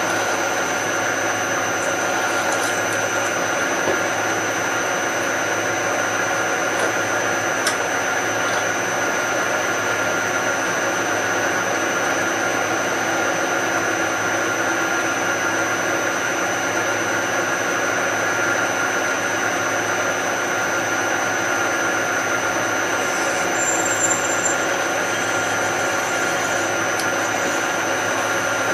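A machine tool drilling into metal: the motor and spindle run at a steady pitch with several constant tones, without let-up.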